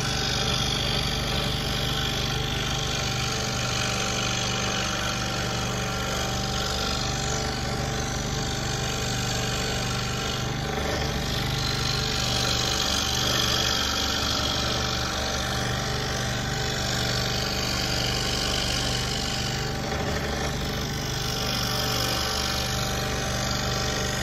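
Scroll saw running steadily, its blade sawing up and down through a wooden board as script lettering is cut. A steady machine hum with a fast, even chatter.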